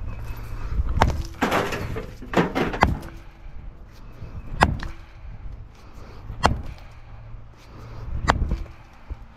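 Sledgehammer blows breaking up a concrete footer: five heavy strikes, about one every two seconds, with a rattle of broken concrete after the first.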